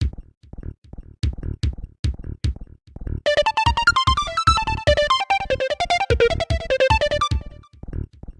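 Nokia 7650 polyphonic ringtone: a synthesized melody over a steady electronic drum beat. It starts with the beat alone, the melody comes in about three seconds in and drops out near the end, leaving the beat.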